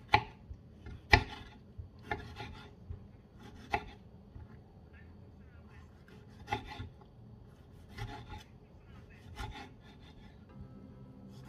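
Kitchen knife dicing a tomato on a wooden chopping board: irregular knocks of the blade on the wood, the loudest about a second in, with a quieter stretch in the middle.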